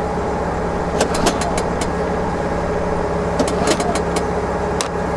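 Small portable inverter generator's recoil starter pulled twice, about a second in and again about three and a half seconds in, each pull a short rising whir with quick clicks. The engine doesn't catch: it won't start after being left out in a dust storm. A steady engine hum runs underneath.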